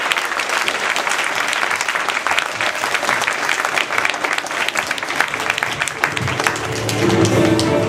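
Audience applauding, many hands clapping at once. About six seconds in, music starts up under the applause.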